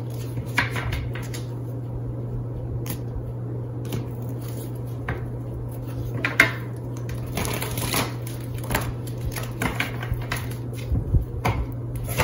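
Tarot cards being handled and shuffled on a glass tabletop: scattered light taps and rustles, with a steady low hum underneath.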